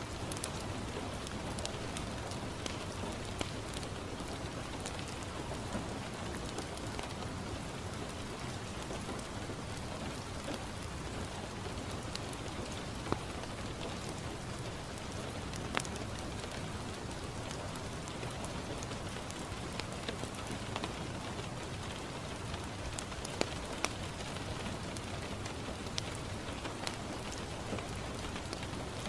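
Steady rain falling on a window, an even hiss, with scattered sharp crackles from a wood fire in a fireplace.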